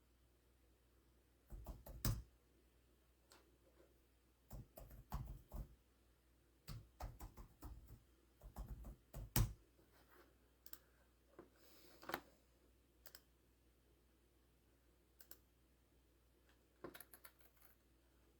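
Irregular clicks and key taps of a computer keyboard and mouse, coming in short scattered runs with gaps between them.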